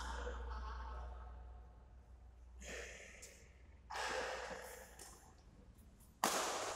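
Badminton rally: racquets hitting the shuttlecock, three sharp hits that echo in the hall, at about 2.5 s, 4 s and 6 s, the last the loudest. A steady low hum lies under them.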